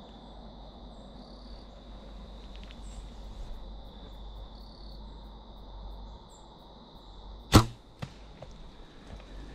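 A compound bow is shot with one loud, sharp crack and a low thump. About half a second later there is a second, quieter crack as the arrow strikes the deer. Crickets trill steadily throughout.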